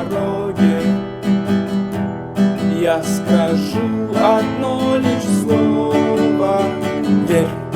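Music: a song with strummed acoustic guitar and a melodic line gliding above it.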